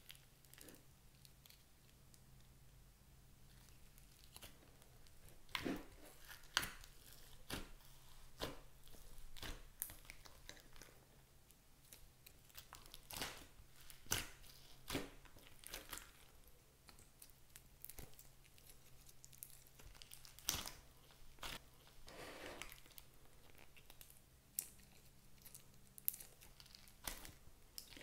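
Hands kneading and pulling clear slime mixed with clay and glitter. It makes irregular sticky clicks, pops and short tearing crackles as the slime is pressed and pulled apart.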